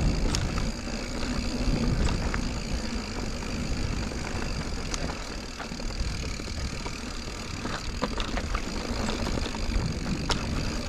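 A Giant Reign full-suspension mountain bike being ridden on a dirt and rock trail, with steady wind rumble on the microphone and tyre and trail noise. Scattered sharp clicks and knocks come from the bike and the ground, several of them around eight and ten seconds in.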